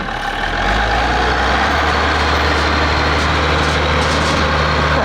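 The engine of a giant custom three-wheeler running as it drives slowly. The engine picks up a little in the first second or two, then holds a steady pace.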